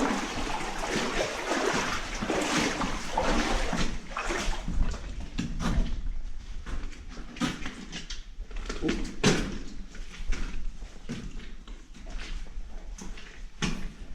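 Footsteps wading through shallow standing water: steady sloshing at first, breaking into separate splashing steps after about four seconds.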